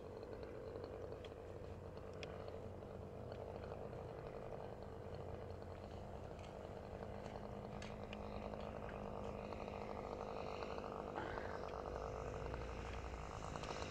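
Radio-controlled Cub model airplane's motor droning steadily in flight, growing a little louder near the end as the plane comes closer.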